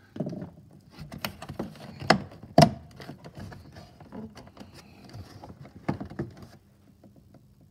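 Plastic door trim pieces on an Isuzu D-Max being handled and worked loose by hand: a string of irregular clicks and knocks, the two loudest a little over two seconds and about two and a half seconds in.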